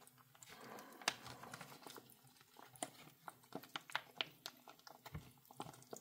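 Faint, scattered wet clicks and smacks of someone eating a spoonful of MRE au gratin potatoes, growing more frequent about halfway through.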